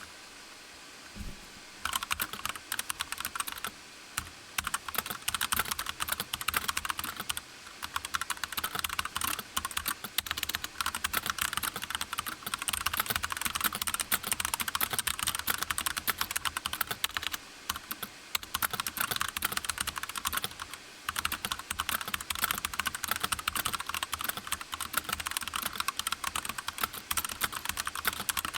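Computer keyboard being typed on fast and continuously, about 83 words a minute, during a typing test: a dense stream of key clicks that starts about two seconds in, with a few brief pauses.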